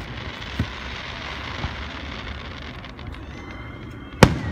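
Fireworks display going off: a steady hiss with two small distant pops, then one loud sharp bang near the end.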